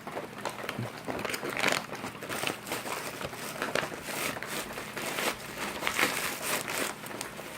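MCW ration packaging crinkling and crackling as the plastic pouches are handled and opened.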